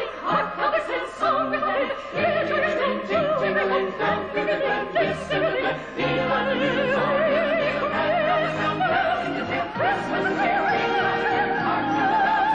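Operatic soprano singing with wide vibrato over an orchestra, climbing to a long held high note about ten seconds in.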